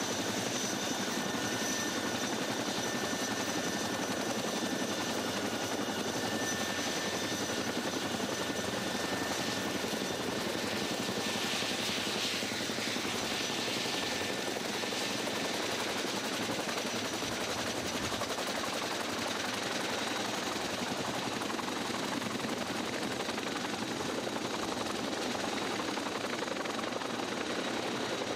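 CH-47 Chinook tandem-rotor helicopter running on the ground with both rotors turning: a steady, dense rotor and engine noise with a thin high turbine whine over it.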